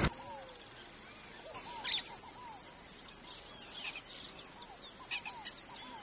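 Birds chirping: many short overlapping calls scattered throughout, over a steady high-pitched tone.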